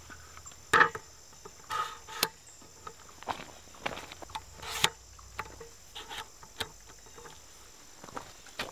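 Sharp clicks and knocks of the camp table's aluminium and steel legs being adjusted to the higher setting, the loudest about a second in. A steady insect chirr runs underneath.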